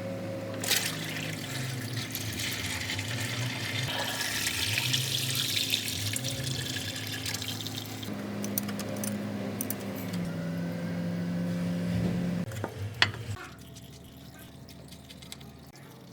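Water spraying with a strong steady hiss over a low machine hum that shifts in pitch now and then; it cuts off with a couple of clicks about thirteen seconds in.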